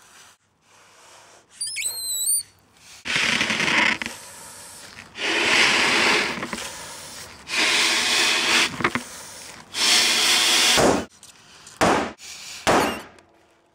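A rubber balloon being blown up by mouth: a series of rushing breaths into it, each about a second long and about two seconds apart, the last two short. A brief high squeal of rubber comes before them.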